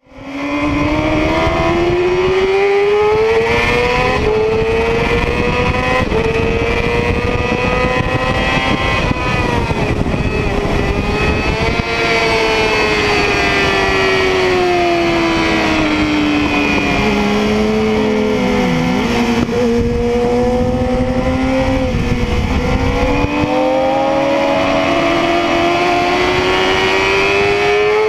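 Yamaha YZF-R6's inline-four engine at racing revs, its pitch climbing under acceleration, sagging through the middle and climbing again near the end. Heavy wind rush on the microphone underneath, which eases a few seconds before the end.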